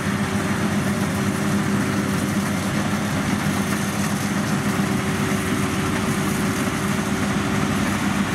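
Rice combine harvester running steadily while harvesting: a constant engine drone with a steady low hum.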